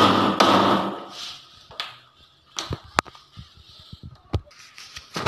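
Repair work on a wooden door: a loud, dense noise with a steady hum cuts off about a second in, then scattered knocks and clicks as the door and its fittings are handled.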